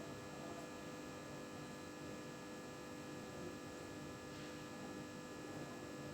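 An old desktop computer running, giving off a steady hum made of several fixed tones, some of them high-pitched.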